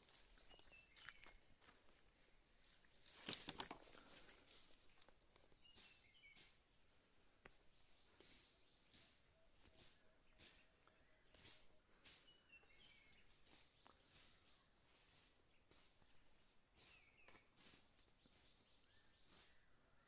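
Faint, steady high-pitched insect drone, with a few short bird chirps here and there. About three seconds in there is a brief crunching rustle, like footsteps in dry leaves and undergrowth.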